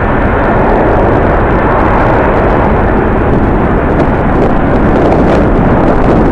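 Loud, steady jet airliner engine noise mixed with strong wind buffeting the microphone.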